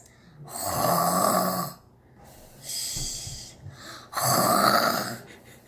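A person mimicking a man's heavy snoring: two long, loud snores of about a second and a half each, with a quieter breath between them.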